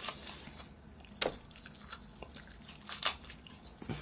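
Close-up eating sounds: biting and chewing a mouthful of rice wrapped in roasted seaweed (gim), with crisp crackles. The sharpest come about a second in and again near three seconds.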